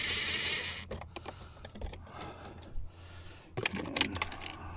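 Small clicks and light knocks of screws and plastic trim being handled on a truck's door panel, with a short scraping hiss in the first second and a cluster of clicks a little past the middle.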